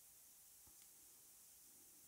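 Near silence: room tone, with one very faint tick a little after half a second in.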